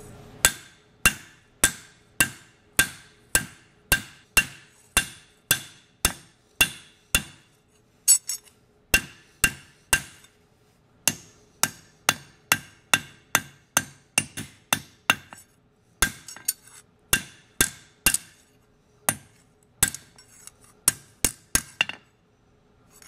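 Machinist hammer striking a cold mild-steel flat bar on an anvil, about two sharp metallic blows a second with a few short pauses, the anvil ringing faintly between blows. The steel is being hammered to texture it for a forged look.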